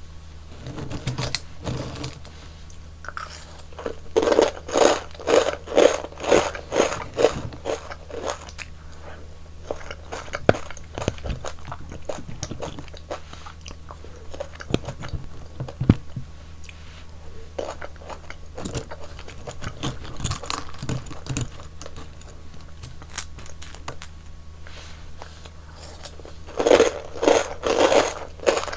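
Close-miked eating: crisp crunching bites and chewing of frozen yogurt ice cream, in quick runs of several crunches a second, loudest in two bursts, one a few seconds in and one near the end, with quieter chewing between.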